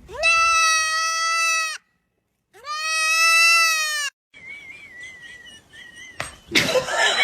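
Two long, loud animal calls, about a second and a half each and a second apart, each sliding up at the start and then held steady. A faint wavering high tone follows, and there is a sharp knock near the end.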